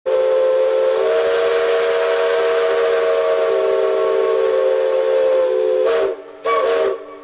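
Steam whistle blowing a steady chord of several notes over a hiss of steam: one long blast of about six seconds, then a short second blast near the end.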